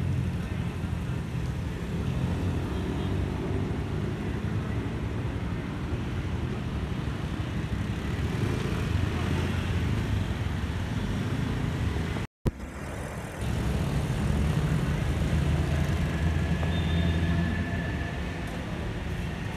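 Road traffic noise: a steady low rumble of passing cars and motor scooters, dropping out for a moment about twelve seconds in.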